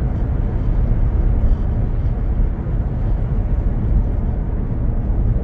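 Steady low road and tyre rumble with wind noise inside the cabin of a Tesla electric car cruising at highway speed; there is no engine note.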